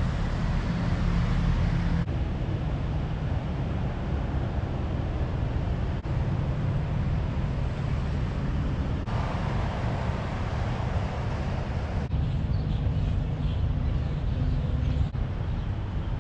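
Car driving on the highway: steady road and engine rumble, heard as a run of short clips whose sound changes abruptly every few seconds.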